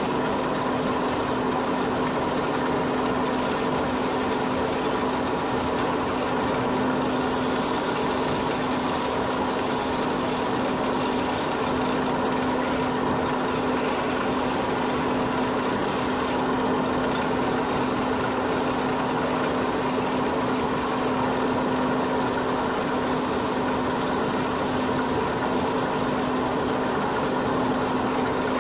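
Wood lathe running with a steady hum while a hand-held tool or abrasive is pressed against the spinning wooden workpiece, giving a continuous scraping of wood.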